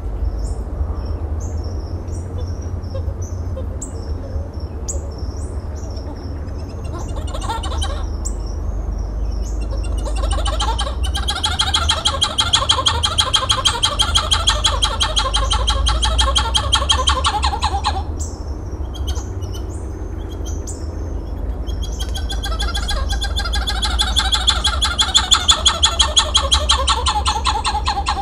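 White-eared titi monkey (Callicebus donacophilus) giving its solo song: a loud, rapid run of repeated notes that builds from about eight seconds in, breaks off near the middle, and starts again a few seconds later. Short high bird chirps fill the gaps, over a steady low rumble.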